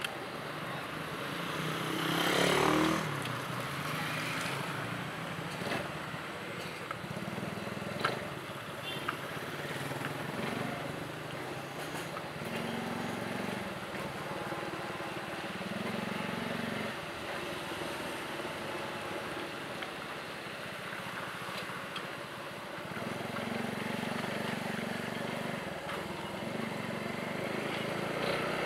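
Engine and road noise heard from a moving vehicle in traffic. The engine's low note rises and falls as it goes, and about two seconds in there is a louder falling whine.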